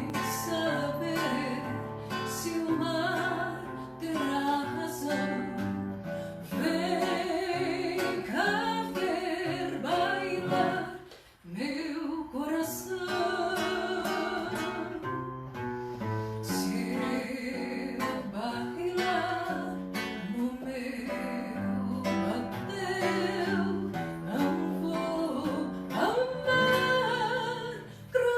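A live song: a solo voice singing a melody over plucked and strummed acoustic guitar, with a short break in the sound about eleven seconds in.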